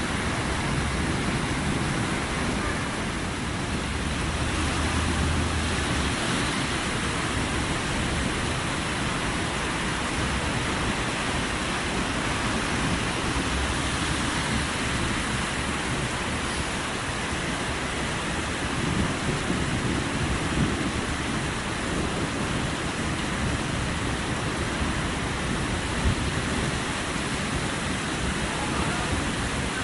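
Heavy rain pouring and muddy floodwater rushing through a street, a steady hiss. A low rumble rises for a couple of seconds about four seconds in.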